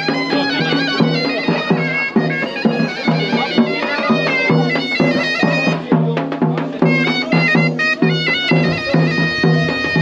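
Traditional folk music led by a bagpipe-like reed wind instrument: a fast melody stepping from note to note over a pulsing low part.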